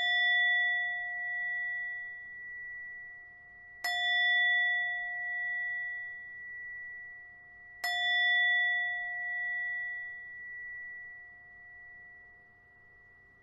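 Meditation bell struck three times, about four seconds apart. Each strike rings on with a slow wavering swell and dies away gradually, the last one fading out near the end.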